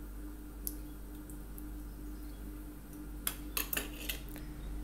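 A quick clatter of small plastic clicks about three seconds in, over a faint steady hum: the humidity sensor probe and its cable being handled and set down on a table.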